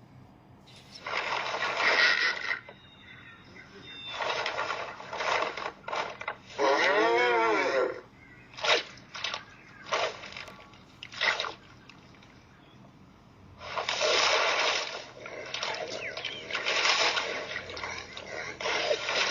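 Cartoon soundtrack of animal characters' nonverbal vocal noises and sound effects in short separate bursts, with one wavering, bleat-like call about seven seconds in.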